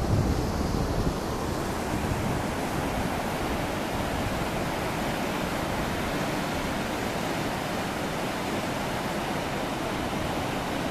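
Mountain stream rushing over boulders, a steady even rush of water. Wind buffets the microphone briefly at the start.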